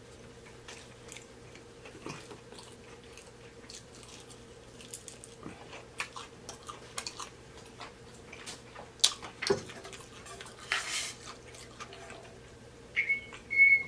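Close-up chewing and biting of fried food, many small crunches and wet mouth clicks, with a couple of louder clicks a little past the middle. A short high whistling tone starts near the end.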